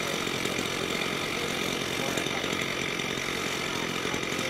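A small motor running steadily, a constant mechanical drone.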